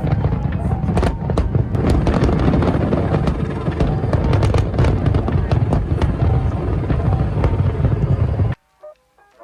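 Fireworks bursting in quick succession, a steady mass of booms and sharp crackles. The sound cuts off abruptly near the end, leaving a few soft notes of music.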